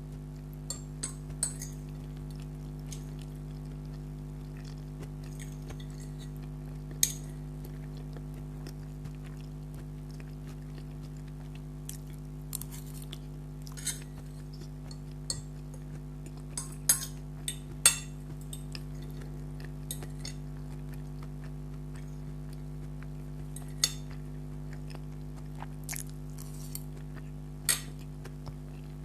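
Metal cutlery clinking and scraping against a plate of spaghetti in scattered sharp clinks, a handful of them louder than the rest, over a steady low electrical hum.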